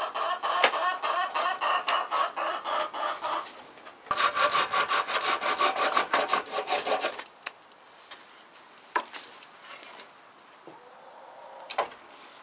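A hen clucking in quick repeated calls, then about four seconds in a hand saw cutting through wood in fast strokes for about three seconds. After that there are only a few scattered knocks.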